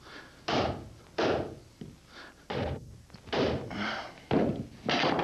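Hammer driving nails into wood: a run of about eight blows at an even pace, a little faster than one a second, each with a short ring, some lighter than others.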